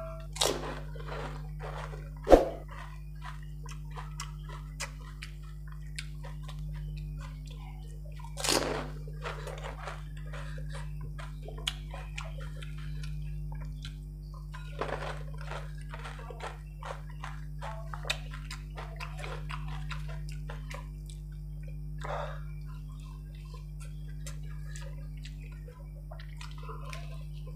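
Close-up eating sounds of golgappe (pani puri): crisp puri shells crunching and the spiced water slurped as they are eaten one after another, with many short crunches throughout and a louder wet mouthful about two seconds in and again near eight seconds. A steady low hum runs underneath.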